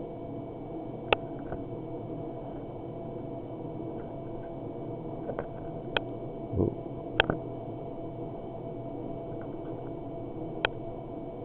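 A few sharp, isolated clicks and one soft low thump over a steady electronic hum with faint whine tones: the buttons and housing of a digital night-vision scope being handled while it is switched off and back on.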